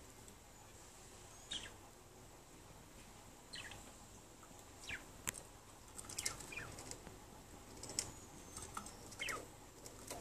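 Budgerigars chirping: a string of short, scattered chirps, several of them quick falling calls, with brief gaps between.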